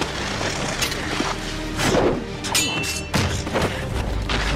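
Fight-scene soundtrack: music under a series of sharp blows and thuds, with a ringing metallic clang of a sword blade about two and a half seconds in.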